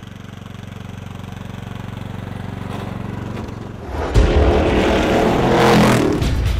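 Riding lawn mower's engine running at a steady pitch, growing louder as it approaches. About four seconds in, a much louder engine sound cuts in suddenly.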